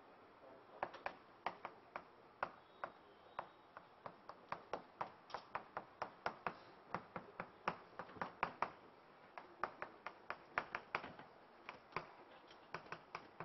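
Chalk tapping and clicking against a chalkboard while writing, a quick irregular run of sharp, quiet strokes a few per second.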